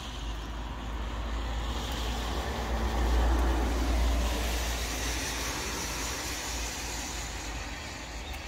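A motor vehicle passing by: a rumbling rush of road noise that swells to its loudest about three seconds in, then slowly fades away.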